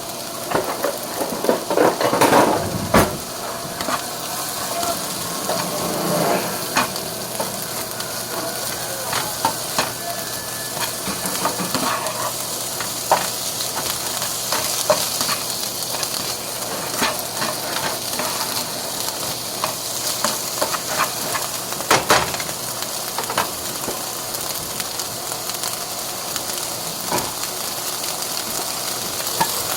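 Food sizzling in a pan, a steady hiss, with scattered sharp clicks and knocks of a utensil stirring against the pan.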